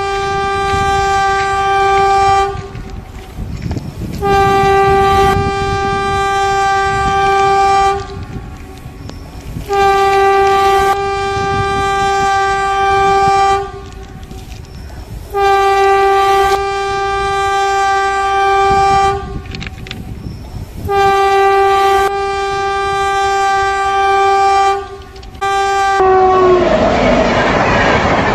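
Indian Railways electric locomotive sounding a series of long, loud horn blasts, each a few seconds long, as it approaches. Near the end the horn drops in pitch as the locomotive passes, and its steel wheels run over the rail right beside the microphone with a loud rushing clatter.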